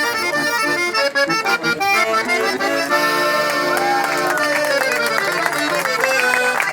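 Three-row diatonic button accordion (tres hileras) playing a tune: a quick run of notes, then from about halfway it moves into long held chords, with sliding pitches rising and falling over them.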